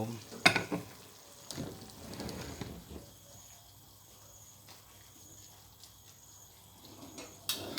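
Curry being ladled out of a cooking pot: a sharp clink of the ladle against the pot about half a second in, a couple of seconds of scooping and pouring, then a quieter stretch and another clink near the end.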